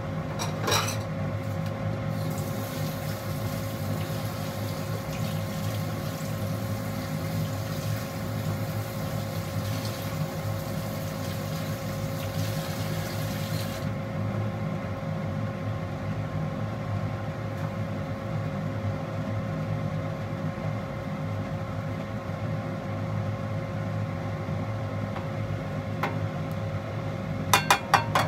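Tap water running for about twelve seconds while fish is rinsed under it, then stopping about halfway through. Under it is a steady low hum with a faint steady tone. A few sharp clicks come in quick succession near the end.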